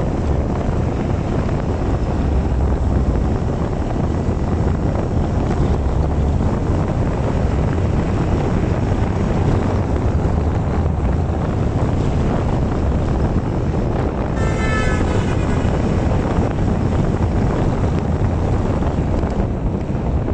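Wind buffeting the microphone with steady road noise as a Kaabo Mantis dual-motor electric scooter rides fast on asphalt. About two-thirds of the way through, a brief high-pitched tone sounds for about a second.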